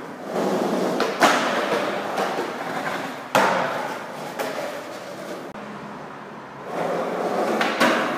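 Skateboard wheels rolling on pavement, broken by sharp clacks of the board about a second in, after about three seconds and near the end.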